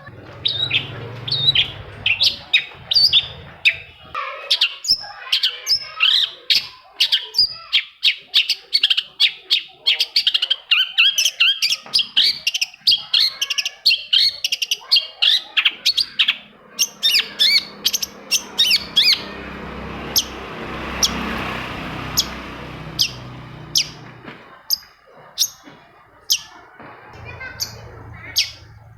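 Long-tailed shrike (cendet) singing a fast, dense run of sharp chirps and trills. About halfway through, the song thins to spaced single sharp notes over a rushing hiss that swells and fades.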